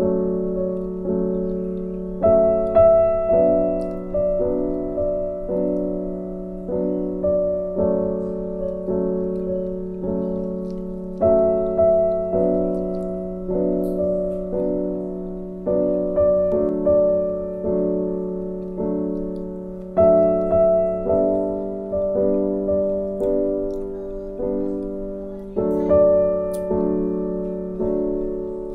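Background music: a slow piano piece of notes struck one after another, each left to fade, at an even pace.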